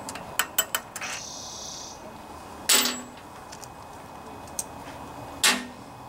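Small socket wrench clicking and clinking on the carburetor mounting bolts of a Briggs & Stratton sideshaft engine as the bolts are undone: a few quick light clicks, then two louder clanks about three seconds apart.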